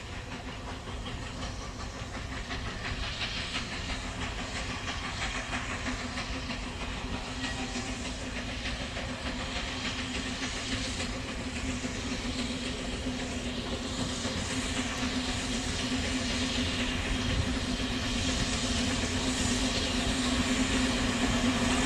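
Small 3 ft narrow-gauge steam locomotive working along the track with a hiss of steam, growing steadily louder as it approaches.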